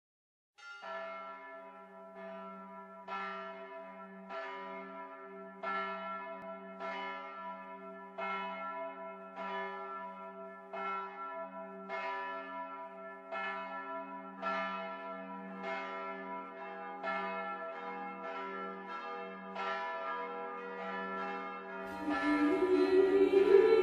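A large church bell tolling slowly and evenly, about one stroke every 1.3 seconds, each stroke ringing on into the next. Near the end, music comes in louder over the bell.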